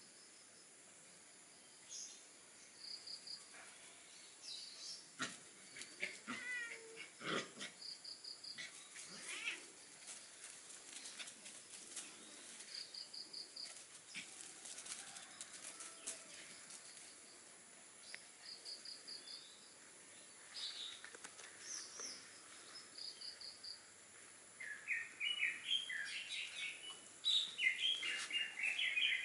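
Small birds chirping in short, repeated groups of high notes every few seconds, with scattered soft rustles and clicks. Near the end a louder, faster run of chirping sets in.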